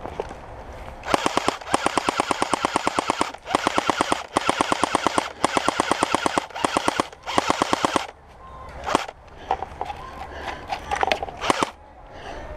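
Airsoft gun firing full-auto in about half a dozen rapid bursts, followed by a few scattered single shots.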